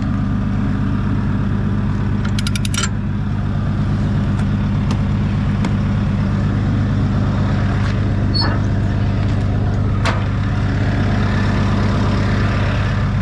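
Engine running steadily at a constant speed. A quick run of about eight clicks comes about two seconds in, and a few single sharp knocks follow later.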